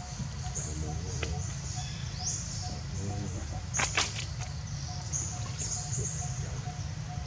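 Outdoor ambience of birds chirping over a steady low rumble, with a high hiss that swells and fades in pulses and a faint short note repeating at an even pace. A couple of sharp clicks stand out about four seconds in.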